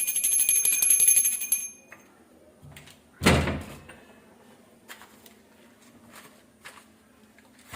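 A metal pooja hand bell being rung rapidly, its ringing stopping about a second and a half in. A single loud thump follows about three seconds in, then a few faint clicks.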